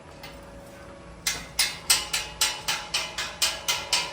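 Hammer tapping on steel in quick, even strikes, about four a second, each with a short metallic ring, starting about a second in.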